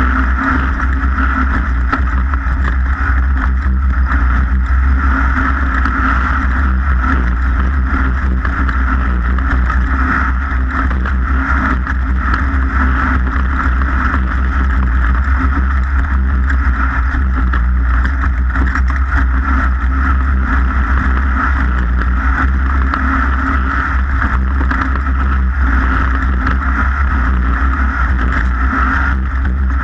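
A racing vehicle's engine running steadily at speed, one unbroken noise with a deep low rumble beneath it.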